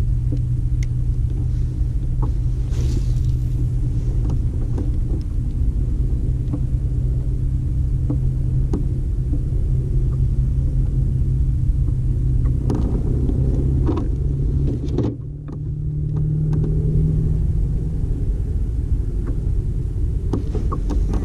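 A small motor running with a steady low hum and rumble. About fifteen seconds in it dips briefly, then comes back at a slightly higher pitch. Faint light clicks are scattered throughout.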